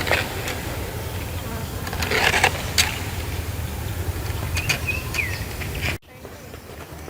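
A steady low buzz like flying insects, with a few short bird chirps; about six seconds in the sound cuts off abruptly to a quieter background with quick, high bird chirps.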